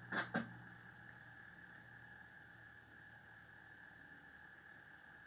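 Quiet, steady background hiss with a faint steady hum and a thin high tone: room tone. Two short sounds come in the first half second.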